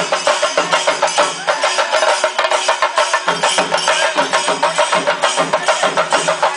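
A group of chenda drums played with sticks in a fast, steady beat of dense, rapid strokes.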